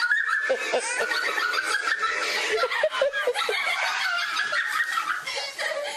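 A small child laughing and giggling without a break, in high-pitched bursts.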